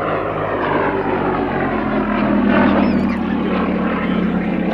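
Gloster Gladiator biplane's Bristol Mercury nine-cylinder radial engine running in a flypast. It grows louder to a peak a little past halfway, then eases off as the aircraft passes.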